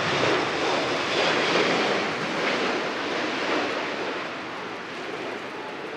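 Jet engines of an Airbus A380 running low overhead: a broad, steady roar that is loudest in the first two seconds and then fades as the aircraft moves away.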